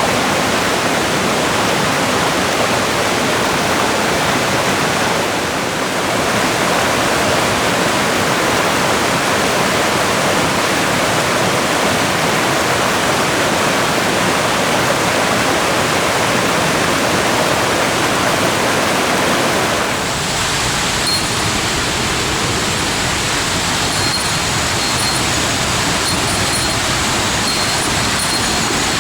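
Steady, loud rush of falling water from a waterfall on a mountain stream. About twenty seconds in the sound changes to a lower, rumblier rush, with faint high tones coming and going.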